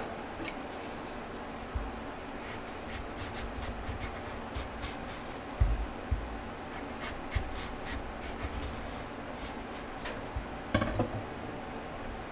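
Light handling sounds: scattered soft clicks, taps and rubbing over a steady hum, with a low thump a little before six seconds in and a short cluster of sharper knocks near the end.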